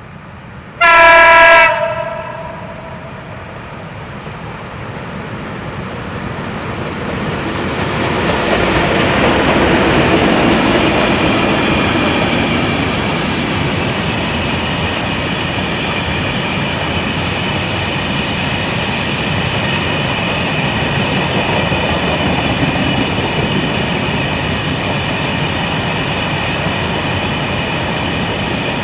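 ET42 twin-section electric freight locomotive sounds one short, loud horn blast about a second in. It then draws closer with its train of Eas open freight wagons. The rumble and clatter of wheels on rail builds to a peak about ten seconds in and carries on steadily as the wagons roll past.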